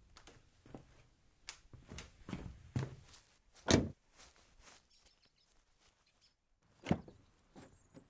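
Foley knocks and thuds recorded from everyday objects: a quick run of knocks, the loudest about three and a half seconds in, then a single heavy thud near seven seconds and a lighter one after it.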